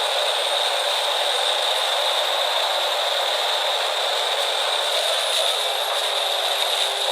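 Morbark HT1684 Predator stump shredder running steadily: a continuous rattling mechanical noise with a constant high hiss.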